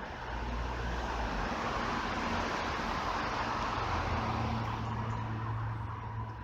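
Road traffic on a nearby street: a vehicle passing, its tyre and engine noise swelling over the first few seconds and fading near the end, over a steady low hum.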